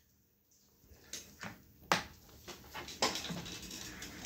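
Light clicks and taps of an Alexandrine parakeet's beak and feet on a computer keyboard and mice, the sharpest about two seconds in, with a scraping rustle over the last second.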